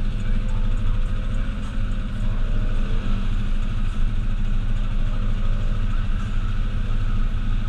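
Off-road vehicle engine running steadily, a low, even drone with no revving up or down.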